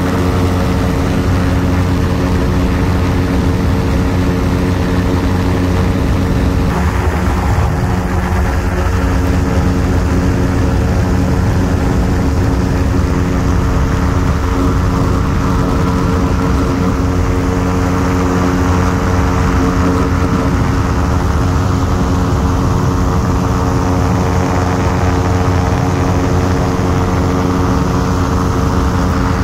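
Ultralight aircraft's propeller engine running at a steady speed, a loud even drone that holds its pitch throughout.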